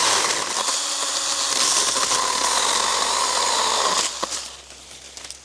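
Stihl GTA 26 battery-powered mini chainsaw running and cutting into a gum tree branch, its electric motor and chain whining steadily, then stopping about four seconds in.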